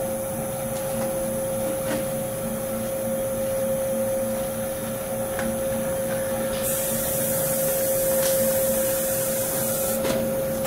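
A seat-and-guide machine's drill spindle runs steadily with a whine, left turning in reverse while the spindle is centred over the next stud hole. A hiss comes in for about three seconds in the second half.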